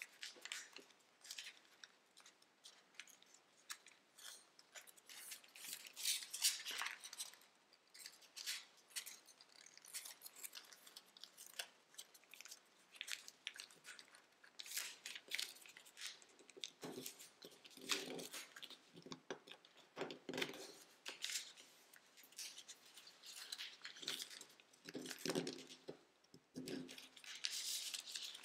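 Tissue-foil origami paper crinkling and rustling as it is folded and pressed into creases by hand, in irregular crackles, with a few fuller rustles in the second half.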